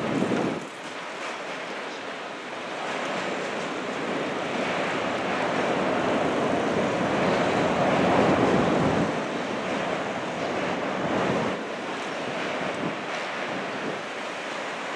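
NS electric passenger trains rolling over a steel railway bridge: a steady rumbling noise that swells about six to nine seconds in, with wind on the microphone.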